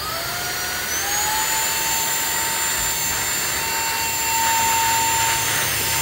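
XREXS cordless handheld vacuum cleaner running: its motor whines up in pitch over about the first second as it spins up, then runs steadily with a high whine over a loud rush of air.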